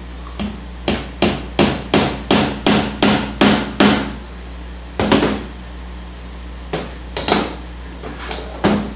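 Hammer driving a tack through linen into a wooden stretcher bar, the linen held taut with canvas pliers: about ten quick taps, some three a second, then one more blow a second later. A few lighter knocks follow near the end.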